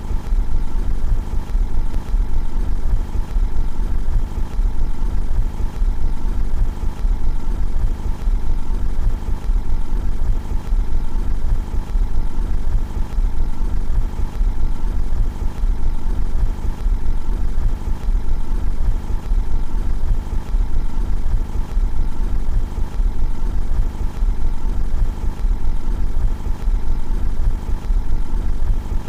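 Car engine idling steadily, heard from outside the car: a constant low rumble with a few steady tones over it.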